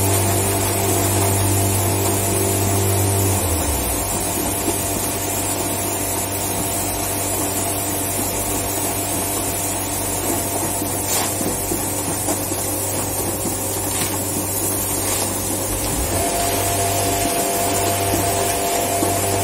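Steady hum and whir of plastics-factory machinery running, with several steady tones; the lowest hum changes about three and a half seconds in, and a higher tone joins near the end. A few faint clicks come through about halfway.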